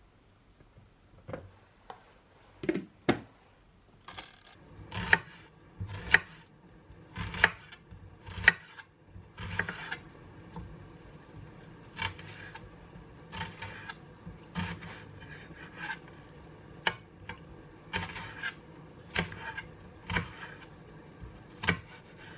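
Kitchen food-preparation sounds: a run of irregular wooden knocks and scrapes, roughly one a second, some sharp and some drawn out.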